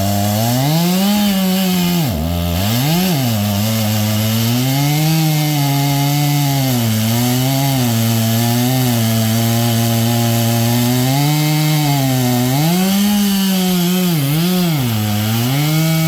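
Small gasoline engine running hard, its speed sagging and recovering as the load on it changes, with sharp dips about two seconds in and again near the end.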